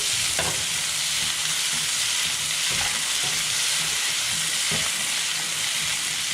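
Sliced zucchini sizzling in hot oil in a pan as it is stir-fried, a steady hiss with a few knocks and scrapes of the spatula against the pan.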